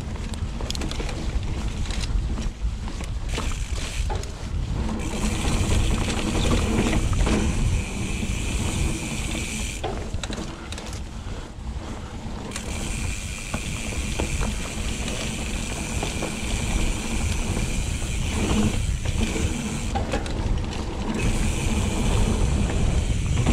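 Steel hardtail mountain bike ridden over dirt singletrack: a steady low rumble from the tyres and frame, with frequent short knocks and rattles over bumps. In stretches, about a third of the way in and again near the middle and near the end, the high-pitched buzz of a Hope Pro 4 rear hub freewheeling while the rider coasts rises over the rumble.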